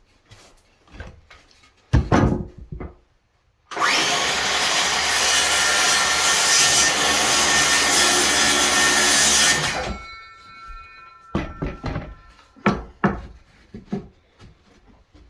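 A power saw cutting through a cedar board for about six seconds, starting and stopping abruptly. Scattered knocks from handling the wood come before and after the cut.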